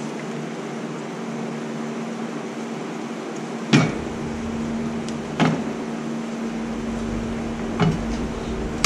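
Tire changer being worked during a tire dismount: a steady hum, then three sharp knocks of metal tools on the steel wheel and machine head, a second or two apart, with a low rumble coming in after the first knock.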